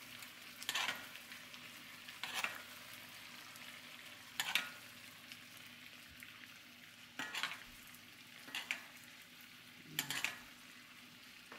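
Butter, lemon juice and garlic sizzling faintly in a cast-iron skillet as salmon pan-sears. A metal spoon scoops the butter and pours it over the fish, making about six short spoon-and-splash sounds.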